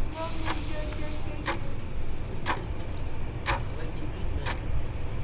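A clock ticking, one sharp tick about every second, over a steady low rumble.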